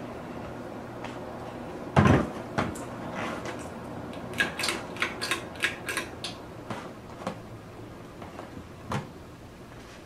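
Ceiling fan running with a steady hum. A sharp knock comes about two seconds in, then a quick run of small metallic clicks and rattles as a hand works the pull chain at the switch housing, and another knock near the end.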